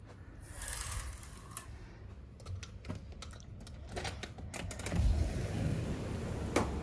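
A brief swish of a sheer curtain, then a quick run of sharp clicks and knocks from a balcony door being handled and opened, followed by a steady low rumble of wind and city noise out on the balcony.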